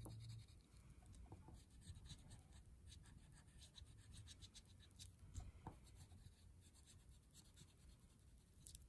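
Faint scratching of an oil pastel rubbed in many short strokes across drawing paper.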